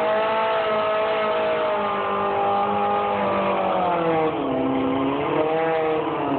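Suzuki Hayabusa inline-four superbike engine held at steady high revs on the drag-strip starting line, its pitch dipping and climbing again about four seconds in and once more near the end as the throttle is worked.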